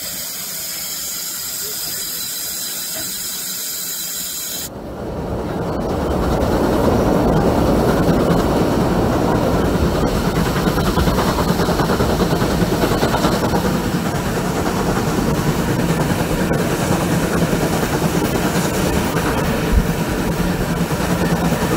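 Steam hissing from a standing express steam locomotive. About five seconds in it cuts abruptly to a steam-hauled train running, heard from an open carriage window behind the locomotive: steady wheel and track noise with the locomotive working ahead, growing louder over the next two seconds and then holding steady.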